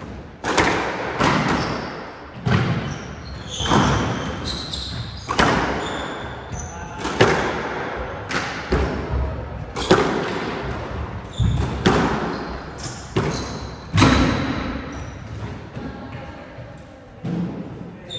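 Squash rally: the ball cracks off the racquets and smacks the walls about once a second, each hit echoing around the enclosed court, with short high squeaks from shoes on the wooden floor. The hitting stops about three quarters of the way in.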